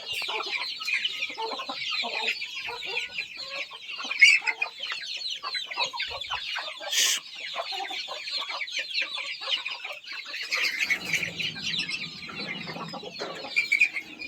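A flock of desi chicks peeping in a dense, continuous high-pitched chatter, with hens clucking lower down from about ten seconds in. A single sharp knock sounds about seven seconds in.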